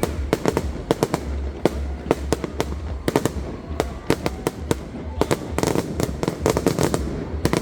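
Aerial fireworks display: a rapid, irregular string of sharp bangs and crackles, several a second, over a low rumble.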